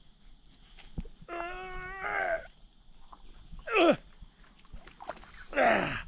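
A man groaning and grunting with effort as he heaves himself up from lying back on a paddleboard: a held groan, then a short falling grunt, then a loud breathy groan near the end. A short knock comes about a second in.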